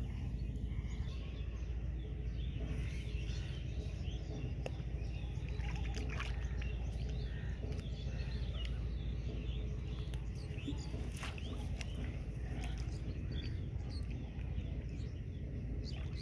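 Hands sloshing and stirring shallow, muddy paddy-field water while groping for fish, over a steady low rumble, with short high chirps throughout.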